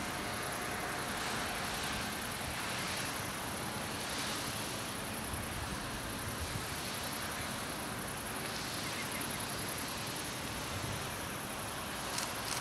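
Steady outdoor ambience: a continuous hiss of wind through leaves, with a high, evenly pulsing insect chirring running throughout.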